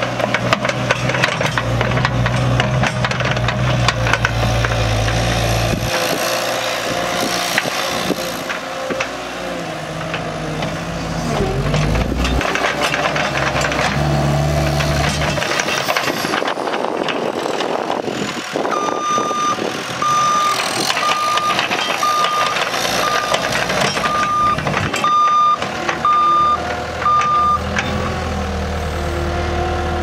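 CAT 262C skid steer's diesel engine running as the machine drives and turns, its engine note shifting up and down. Past the middle its backup alarm sounds a steady row of about nine single-tone beeps, roughly one a second, while it reverses.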